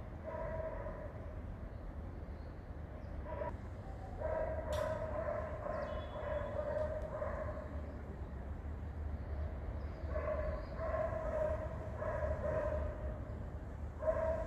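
High-pitched, wavering whining calls from a pet, repeated in several stretches. The longest is held for about four seconds near the middle. A steady low hum runs underneath.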